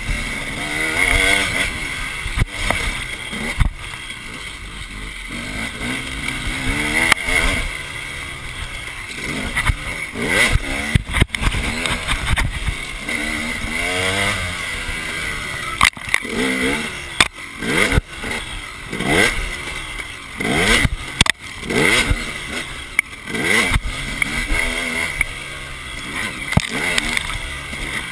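Two-stroke enduro dirt bike engine heard from the bike itself, revving up and easing off over and over as it is ridden along a bumpy dirt track. Wind rushes over the microphone, and sharp knocks come from the bumps.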